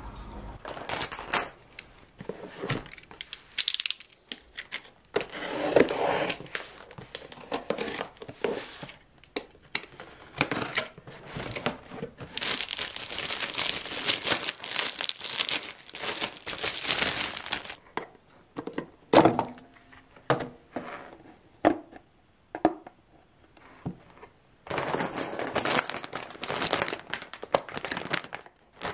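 Plastic packaging crinkling and tearing as hands unwrap packs of tissues, with long stretches of rustling. Scattered sharp clicks and knocks of handled items run through it, the loudest about two-thirds of the way through.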